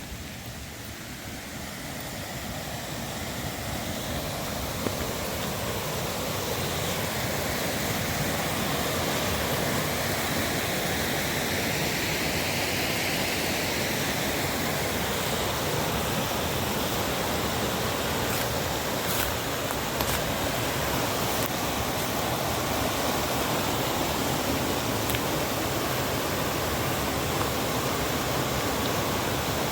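Rushing water of a river cascade, a steady hiss and rumble that grows louder over the first several seconds and then holds steady.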